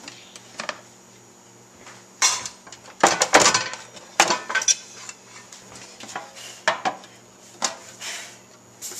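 Metal cookware clattering: cast iron skillets and a metal baking sheet knocking and sliding against each other as they are lifted, moved and set down. A handful of separate clanks, the loudest and longest about three seconds in.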